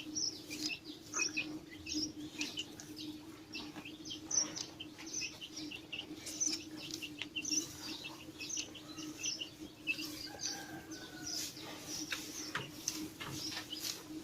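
Many small birds chirping: short, high chirps overlapping thickly throughout, over a steady low hum.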